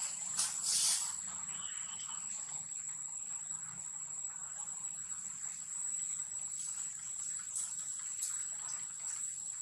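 Steady high-pitched insect drone held at one pitch, with a few brief rustles and clicks, the loudest about a second in.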